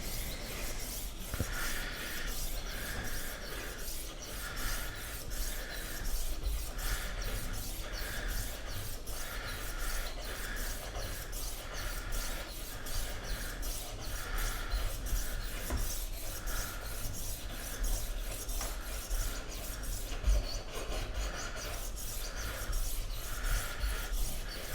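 Diamond-plated disc of a Tumbler rolling knife sharpener rasping along the edge of a dull Victorinox knife in even back-and-forth strokes, about one a second. This is the coarse sharpening stage, grinding the edge until metal particles rise from the apex.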